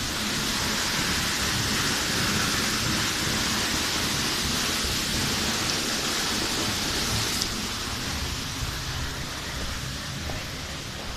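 A waterfall's water rushing steadily. The bright hiss drops off suddenly about seven seconds in, leaving a softer rush.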